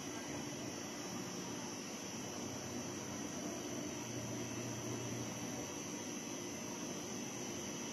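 Forklift engine running steadily, a continuous mechanical hum whose low note strengthens briefly about four seconds in.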